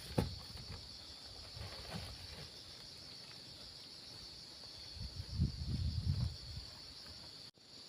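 Steady high chirring of insects such as crickets, with a cluster of low thuds and rustling about five seconds in.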